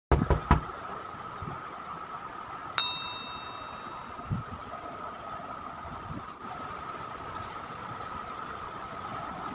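Steady mechanical hum with a constant high tone inside a cooling tower. A few sharp knocks at the very start, and a single metallic clang about three seconds in that rings briefly.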